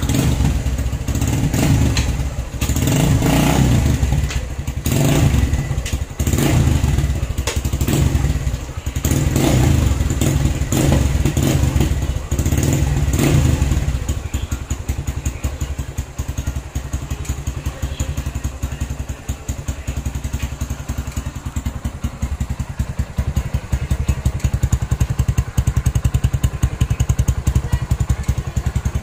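Kawasaki Barako II single-cylinder engine through an aftermarket chicken pipe muffler, blipped repeatedly, about one rev a second, then settling about halfway through into a steady idle with even exhaust pulses.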